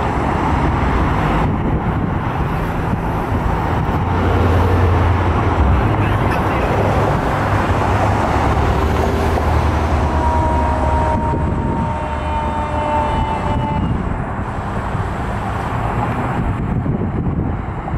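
Road traffic with fire engines approaching, their diesel engines running heavily in the low end. From about ten to fourteen seconds in, one long two-note horn blast is held steady and sags a little in pitch.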